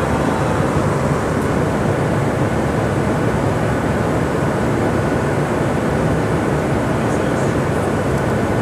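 Steady in-flight cabin noise of a Boeing P-8 Poseidon maritime patrol aircraft: the even drone of its engines and airflow heard from inside the mission cabin.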